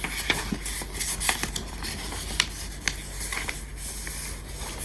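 Paper storybook being handled and its pages turned: light rustling with scattered small clicks and taps, over a steady low hum.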